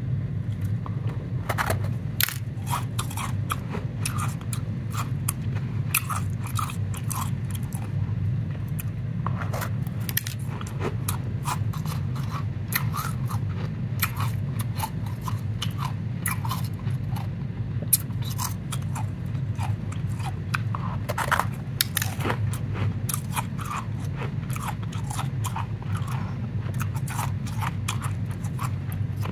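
Powdery ice crunching and crackling as gloved hands squeeze and crumble a lump of it, in many irregular crisp crunches. A steady low hum runs underneath.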